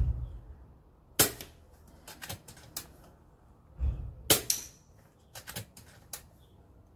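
Two shots from an FX Dreamline .22 PCP air rifle, each a quiet dull thump followed by a run of sharp metallic clicks and clacks from the metal spinner targets being hit and the rifle being cycled.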